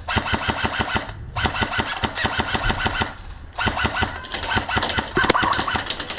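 Airsoft electric guns firing on full auto: rapid, evenly spaced shots in three long bursts, broken about a second in and near three seconds. A single louder sharp crack comes about five seconds in.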